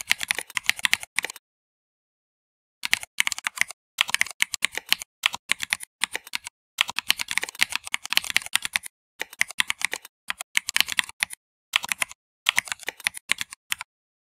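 Typing on a computer keyboard: quick runs of keystroke clicks broken by short pauses, the longest just after a second in.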